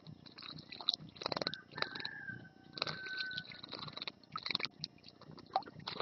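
European goldfinch bathing in a shallow stone bird bath, its wings beating the water in repeated short bursts of splashing.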